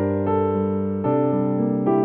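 Background music: slow, sustained electric-piano chords, the harmony changing about a second in.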